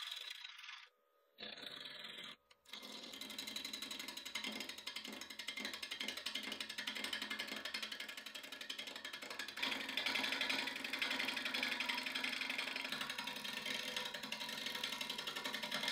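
Lathe gouge cutting a spinning manzanita burl, giving a rapid, even ticking as the tool meets the uneven burl on each turn. The first couple of seconds come in short pieces broken by silence, and the cut gets louder about ten seconds in.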